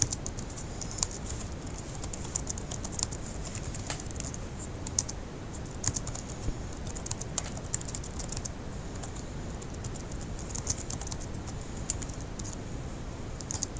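Typing on a laptop keyboard: irregular runs of keystroke clicks with short pauses between them, over a steady low background noise.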